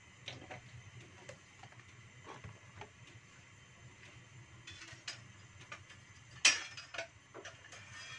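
A little cooking oil heating in a wok on a gas burner: scattered faint ticks and pops, with one sharper crackle a little past six seconds in.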